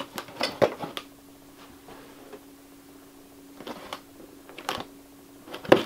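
Cardboard reel box handled and turned in the hands: a few light taps and rustles, clustered in the first second and a few more in the last two seconds, over a faint steady hum.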